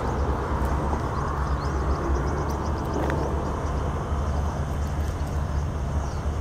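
BNSF diesel locomotives idling: a steady low engine rumble with no change in pitch.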